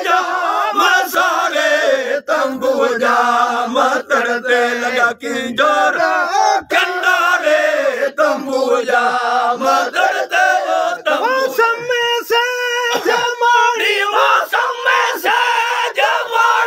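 A group of Sindhi faqeers singing Raag Kafi together in loud, high-pitched male voices, with long wavering held notes that overlap one another.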